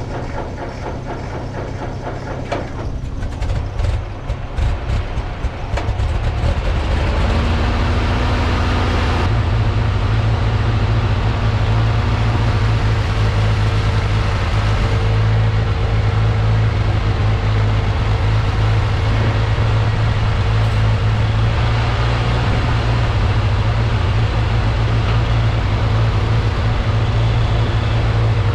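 1949 Ford 8N tractor's four-cylinder flathead engine running. There are some knocks in the first few seconds, then it settles into a louder, steady run from about six seconds in.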